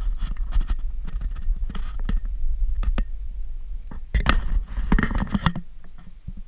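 Wind rumbling on a handheld action camera's microphone, with scratching and clicking handling noise from fingers on the camera housing, the scraping densest for a second or so about four seconds in.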